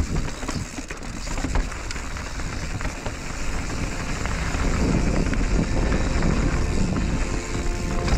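Mountain bike rolling fast down a rocky dirt trail: tyres running over dirt and stone, with scattered knocks and rattles from the bike over bumps. Heavy wind rumble on the microphone.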